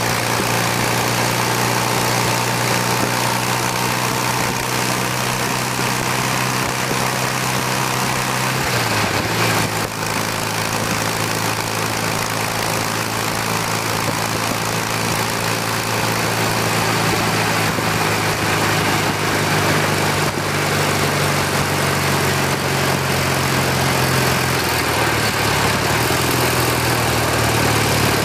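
BMW R65's air-cooled flat-twin engine running steadily at road speed, under a constant rush of wind noise. The engine note steps down about nine seconds in and shifts again near the end.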